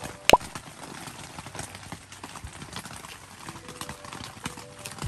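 A dog gnawing on a dried beef tendon held in a hand: irregular crunchy clicks of teeth on the hard chew. A single loud, short pop with a quick rising pitch sounds just after the start.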